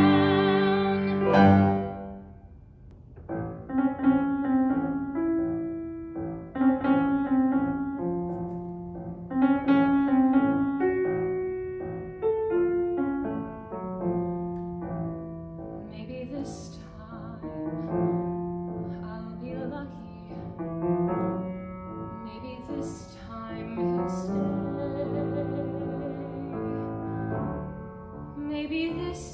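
A woman singing a musical theatre song with piano accompaniment. A held note with vibrato ends about a second and a half in, then the piano plays on under the sung melody.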